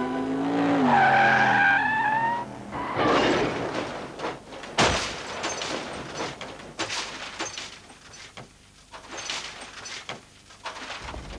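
A screeching sound gliding up and down in pitch, then a rushing noise and a sharp crash about five seconds in. Scattered cracks and clatters of falling debris follow.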